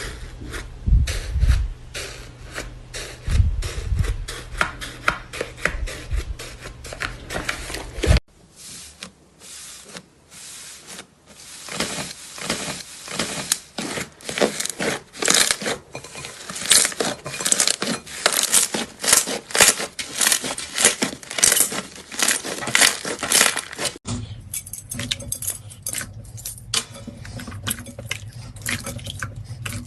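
Slime being squeezed and poked by hand, giving a dense run of wet crackles and popping clicks. The sound changes abruptly twice, about 8 and 24 seconds in, as one slime gives way to another.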